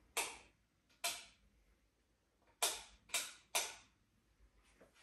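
Five sharp taps, irregularly spaced: one just after the start, one about a second in, then three close together between two and a half and four seconds, each fading quickly with a little room echo.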